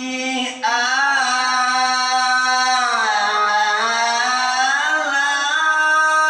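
Male Quran reciter's voice in melodic tarannum recitation, drawing out one long ornamented note that sinks in pitch about halfway through, rises again, and is held steady near the end.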